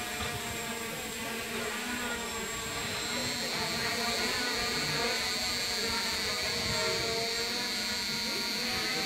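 A multirotor camera drone's propellers and motors whining steadily in flight. A higher whine joins about three seconds in and the sound grows slightly louder.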